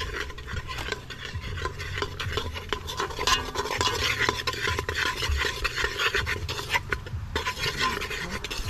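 A metal spoon stirring and scraping around the inside of an aluminium pot of oil, with quick, irregular clicks and scrapes against the pot's sides and bottom.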